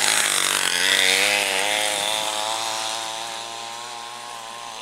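A motor-driven racing lure winch running with a wavering pitch. A hiss comes as the lure is dragged past in the first couple of seconds, then the sound fades as it pulls away.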